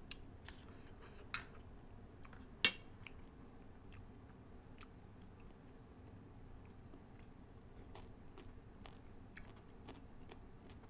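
A person eating papaya salad with pickled crab by hand: faint, close chewing and wet smacking, with scattered small clicks from fingers picking through the food and one sharper click about two and a half seconds in.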